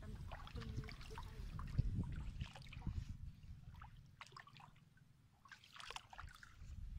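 Faint sloshing and small splashes of legs moving through shallow pond water, scattered irregularly over a low rumble. It fades almost out a little after four seconds in and returns near the end.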